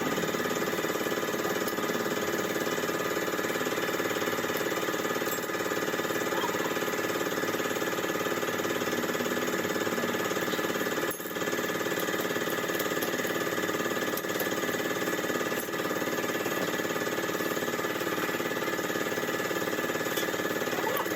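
A motor or engine running steadily at constant speed, its hum unchanging apart from a brief dip about eleven seconds in.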